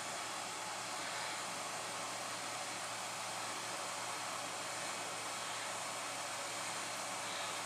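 A steady, even hiss that does not change, with no distinct events.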